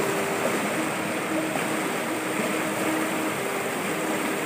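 River water rushing steadily over and between boulders in shallow rapids.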